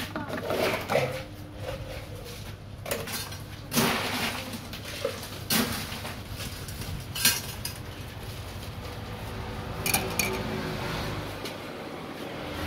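Utensils and dishes clinking as a drink is mixed: a spoon and a stainless steel bowl knocking against plastic cups. There are about five sharp clinks several seconds apart over a steady low hum.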